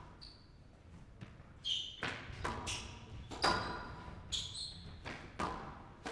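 Squash rally: a series of sharp smacks of the ball off rackets and walls, ringing in the hall, roughly every half second to a second from about two seconds in, with short squeaks of players' shoes on the court floor between the shots.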